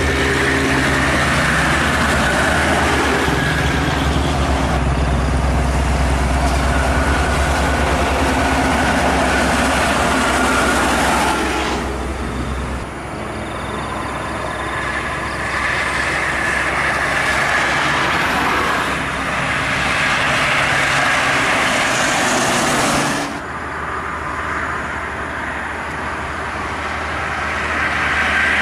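Intercity coaches and cars passing on a highway: steady engine and tyre noise with a low hum. The sound changes abruptly twice, about 12 and 23 seconds in, at cuts between clips.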